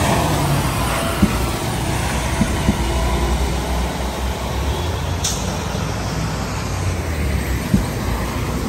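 Street traffic noise: a steady low rumble of heavy vehicles' engines, with a few light knocks and a short high hiss about five seconds in.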